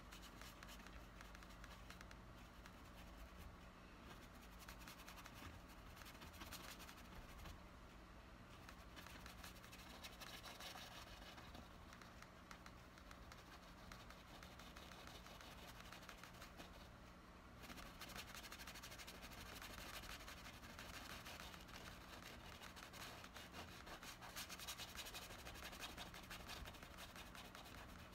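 Faint scratching and brushing of a paintbrush working acrylic paint onto canvas, a little louder from about two-thirds of the way through.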